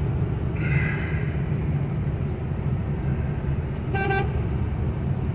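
Steady low drone of a 2002 Ford F-350's 7.3 L Power Stroke turbo-diesel V8 and road noise, heard from inside the cab while driving. Two brief high tones cut in, one about half a second in and another about four seconds in.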